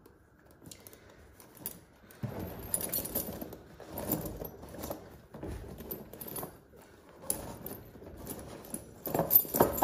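Steel tire chains clinking and jingling as they are handled and hooked onto a lawn tractor's rear tire. The clinks are irregular, starting about two seconds in and loudest near the end.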